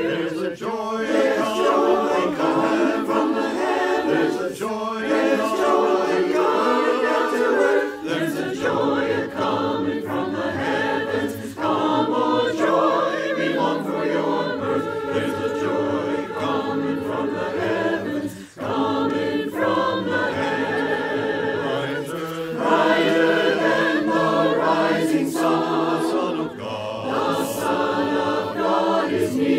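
A virtual choir of men's and women's voices, each recorded at home, singing an Advent hymn together.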